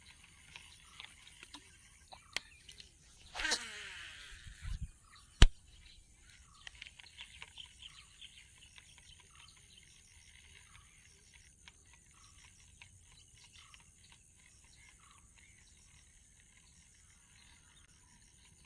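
Quiet outdoor ambience with faint frog and bird calls: short calls repeating about once a second and scattered chirps. A brief louder call with falling pitch comes about three and a half seconds in, and a single sharp click follows about two seconds later.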